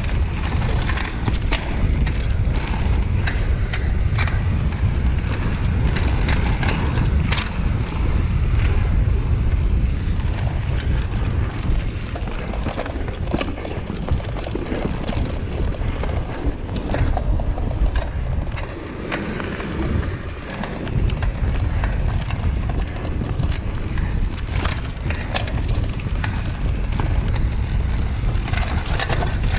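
Mountain bike ridden fast down a dirt trail: wind buffeting the microphone over tyre noise, with frequent short rattles and clacks from the bike over bumps.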